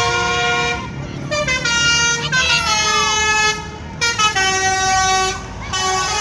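Bus's Basuri telolet horn, an electric multi-tone horn, playing a melody of held chords that change pitch every second or so.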